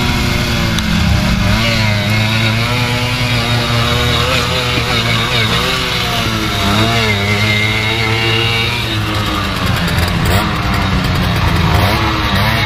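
Small motorcycle engines revving hard and unevenly, pitch rising and falling repeatedly as the bikes churn through deep mud with spinning rear wheels.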